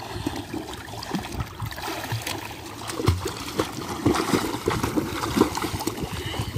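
Water splashing and sloshing as children doggy-paddle and kick in shallow water: an irregular patter of small splashes that grows louder about halfway through.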